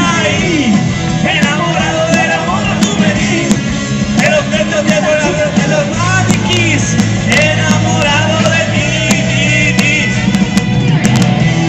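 Live rock band playing: electric guitars, bass and drums with a male singer, loud and steady.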